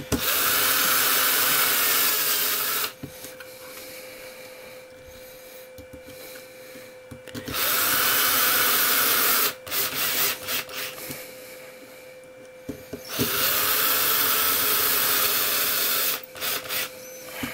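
Power screwdriver driving small screws into an RC truck's chassis brace in three runs of two to three seconds each, its motor whirring, with small clicks between runs.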